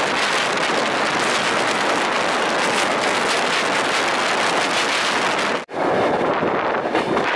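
Wind rushing over a microphone held out of the window of a moving passenger train, mixed with the train's running noise. The noise breaks off for an instant about two-thirds of the way through, then comes back lower-pitched and more uneven.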